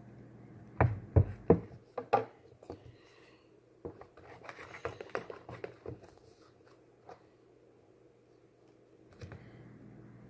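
Objects handled on a tabletop during slime-making: four sharp knocks in quick succession about a second in, then a couple of seconds of light clicking and scraping, and a few faint ticks near the end.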